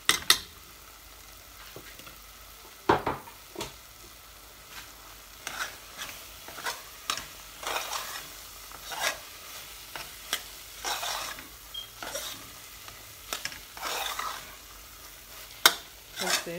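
Metal spoon stirring and scraping a thick grated-carrot and milk-powder mixture around a metal saucepan, a string of irregular scrapes with a few sharper clanks of spoon against the pan, about 3 s in and near the end. The mixture is being stirred constantly as it dries out so it does not catch on the bottom.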